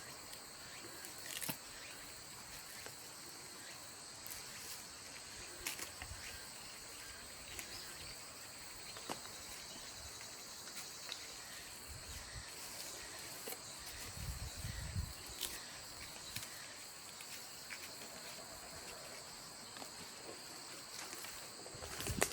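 Crickets chirring in a steady autumn insect chorus, two high unbroken tones, with scattered light clicks and a few low thumps from someone moving about close by.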